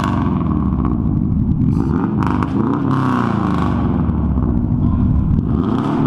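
Car engine with unequal-length headers, a straight pipe and blast-pipe tips being revved several times, its pitch rising and falling with each rev. The exhaust is loud.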